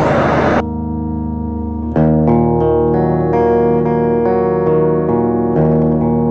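A loud hissing wash of noise cuts off about half a second in. It gives way to instrumental music: a steady low drone under sustained, layered chords, with new notes coming in every half second or so, as if from an effected guitar or synthesizer.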